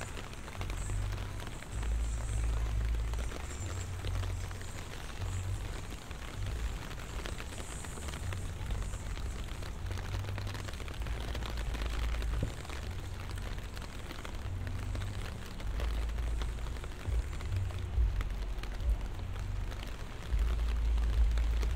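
Rain falling: a steady hiss with many small close drop hits, over a low rumble that swells and fades every second or two.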